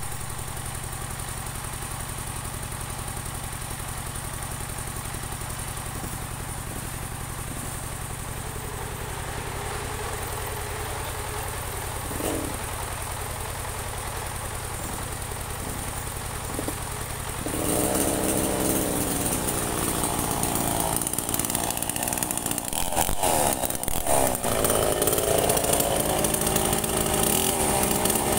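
Portable band sawmill's engine running steadily. About two-thirds of the way through, the machine grows louder, adding a higher whine that wavers up and down and a hiss.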